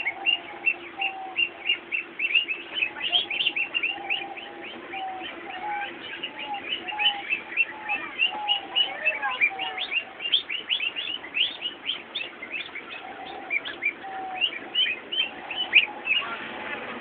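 A brood of hungry ducklings peeping nonstop, many short high peeps overlapping at several a second, with a lower repeated note running beneath them.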